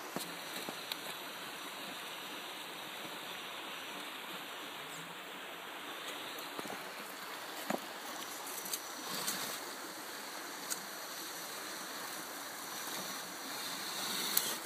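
Steady rush of flowing river water, with a few light clicks and knocks scattered through.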